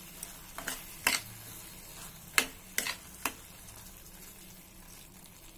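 Metal spoon stirring a frying tomato-and-onion curry in a metal pan, clinking against the pan about six times in the first three and a half seconds, over a soft sizzle.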